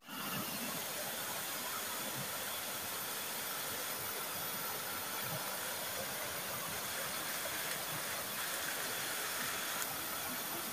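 Shallow rocky forest stream rushing steadily over stones and small cascades: an even, unbroken hiss of flowing water.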